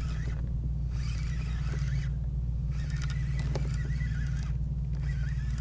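Spinning reel being cranked in bouts while fighting a hooked fluke, a wavering whir and scratch for a second or two at a time with short pauses between, over a steady low rumble.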